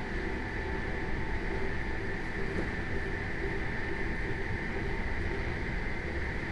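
ÖBB class 4020 S-Bahn electric multiple unit running along the line, heard from inside the carriage: a steady rolling rumble with a few held whining tones.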